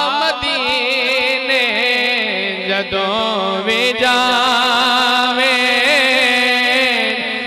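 A man singing a Punjabi devotional manqabat through a microphone. He draws out long, wavering, ornamented notes over a steady low drone.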